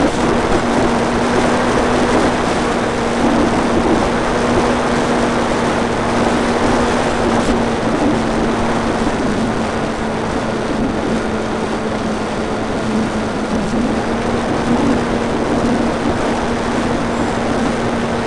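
Multiplex FunCub RC model plane in flight, heard from its onboard camera: the electric motor and propeller hum at a steady pitch under heavy wind rush over the microphone.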